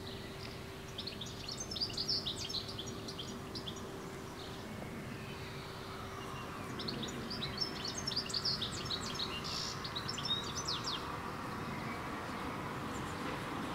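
Small birds chirping in quick bursts, a cluster about a second in and a busier one from about seven to eleven seconds, over a faint steady low hum and soft outdoor background noise.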